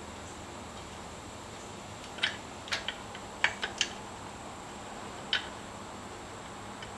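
A handful of short, light clicks and taps, most of them bunched together in the middle, over a low steady hiss: small metal parts and hand tools being handled while fitting an air intake.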